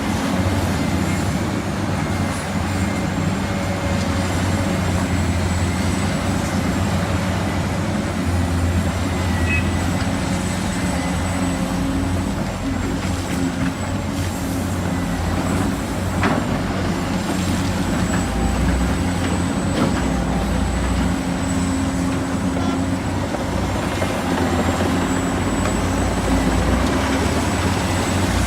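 Heavy diesel construction machinery running steadily, a low engine drone with a thin high whine over it and a few sharp knocks in the middle.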